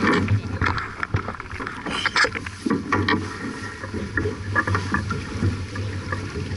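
Wind and water noise aboard a J/24 sailboat under way, with scattered knocks and rustles on deck, the loudest about two to three seconds in.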